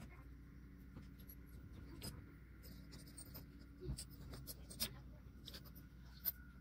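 Faint clicks, taps and scraping of small metal and plastic planetary gear parts being handled and pressed into a 3D-printed gearbox housing, with a few sharper clicks in the second half, over a steady low hum.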